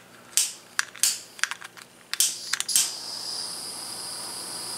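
Handheld butane torch lighter's igniter clicking over and over without lighting, then catching about three seconds in to a steady hissing jet flame.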